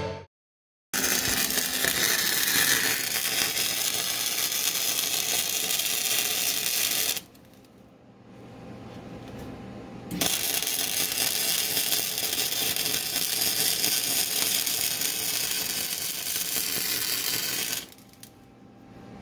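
Welding arc crackling steadily through two long weld runs, the first about six seconds and the second about seven and a half, with a short pause between them. The welds are going in on subframe connectors that were tacked in place earlier.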